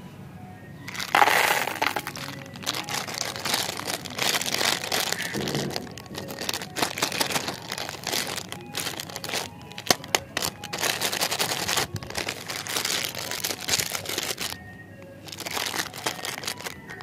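Plastic candy wrapper crinkling and crackling as it is handled and torn open, in a long run of irregular rustles with a few sharper cracks, easing off briefly near the end. Faint background music underneath.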